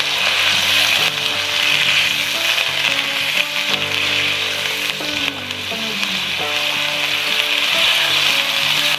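Boneless chicken cubes frying in hot oil in a pan, a steady high sizzle as they are stirred with a silicone spatula.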